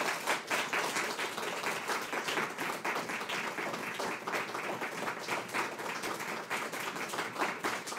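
Audience applauding: many hands clapping together in a dense, steady round.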